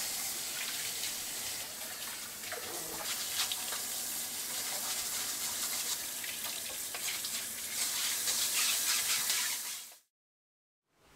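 Kitchen tap running water into a sink over the plastic parts of a Nutribullet juicer as they are rinsed and scrubbed with a dish brush, with small knocks and clicks of the parts being handled. The water sound fades out to silence about a second before the end.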